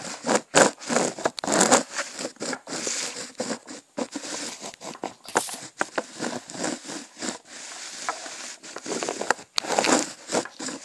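Handling noise on a phone's microphone as it is picked up and repositioned: a dense, irregular run of rustles, rubs and clicks from fingers and clothing against the phone.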